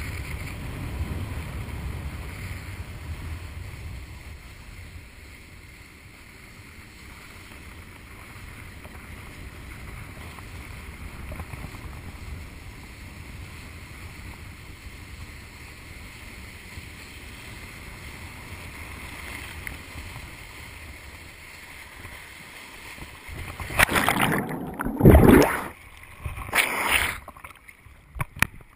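Water spray and wind rushing over the rider's camera as a wakeboarder is towed behind a boat. Near the end, a few seconds of loud, irregular splashing as he falls into the water.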